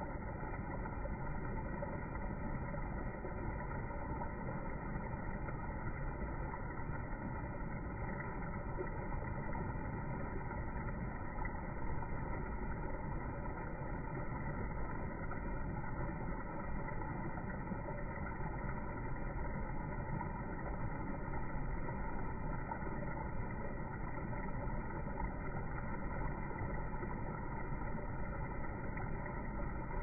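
Steady, even background rumble with no distinct events.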